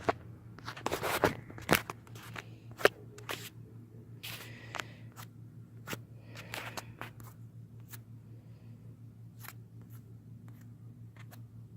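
Scattered clicks, knocks and short scrapes of metal tools and hose fittings being handled, loudest in the first three seconds, over a steady low hum.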